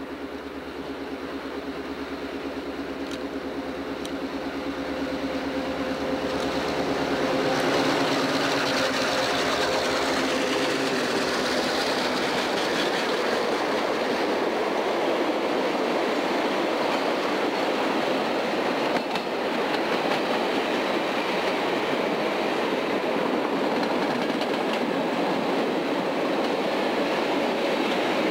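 Diesel freight locomotives approach and pass, their engines droning and growing louder over the first several seconds. Then a long string of freight cars rolls steadily by.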